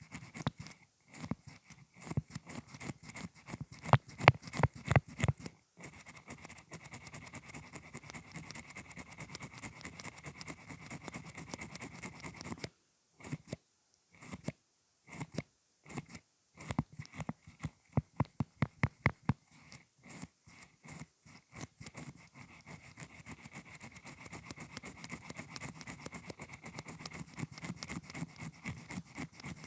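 Avon Color Candy mascara wand pumped in and out of its tube close to the microphone: rapid squishy clicking strokes, several a second, with a couple of short breaks about halfway through.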